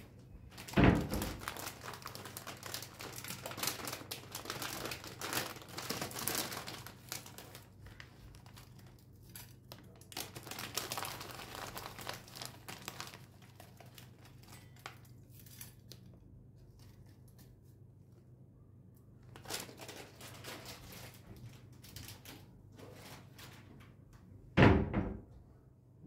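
Plastic bag of dried linden flowers crinkling and rustling in several stretches as it is handled, with a knock about a second in and a louder knock near the end.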